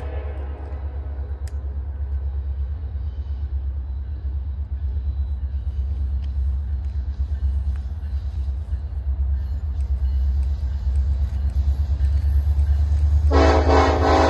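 Approaching Norfolk Southern diesel freight locomotive: a low, steady engine rumble that slowly grows louder as it nears, then a long air horn blast starts about a second before the end.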